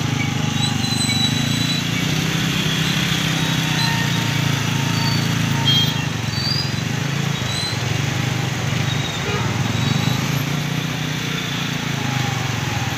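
Two-wheeler engine running at low, steady speed in slow traffic on a flooded road, over a constant hiss of tyres and water.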